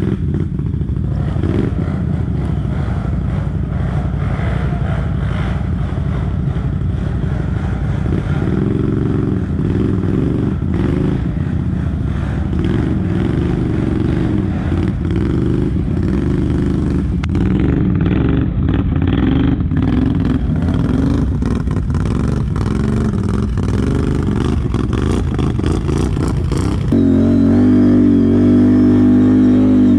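ATV engine working under load on a hill climb, its pitch rising and falling with the throttle, with scattered knocks and clatter. About three seconds before the end it gets louder and holds steady at higher revs.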